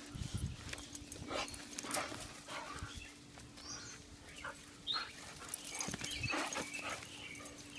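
Two dogs play-wrestling on grass, with irregular scuffling and rustling from paws and bodies and a few brief high whines from the dogs.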